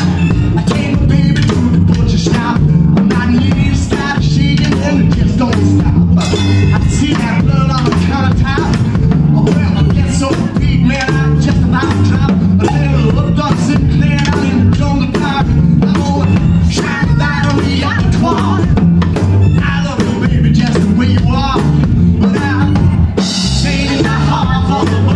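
A live band playing a song, with a drum kit played with sticks loud and up front over the rest of the band.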